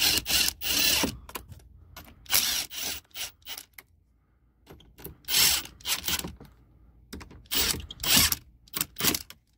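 Kobalt 24-volt brushless cordless impact driver running in a series of short bursts, driving the tow mirror's mounting nuts down tight onto their studs.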